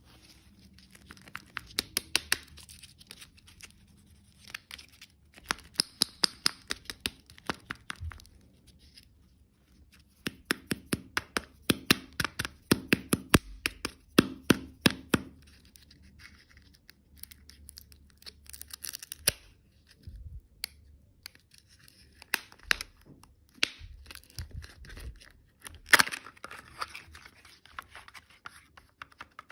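Close-miked crunching of hard candy and desserts being bitten and chewed: runs of sharp crackling clicks lasting a second or two, with short pauses between.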